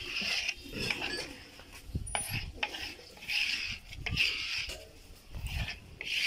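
Thick, setting date-palm jaggery being stirred and scraped around a bowl by hand and a flat scraper, in repeated strokes of about a second each.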